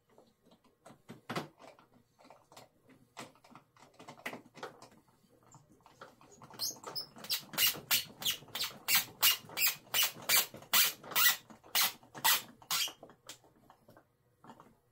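Round-head screw being driven by hand with a screwdriver into the wing strut mount of a foam RC plane: scattered clicks at first, then about halfway a quick, regular run of sharp strokes, roughly three a second, as the screwdriver is twisted hard, stopping shortly before the end.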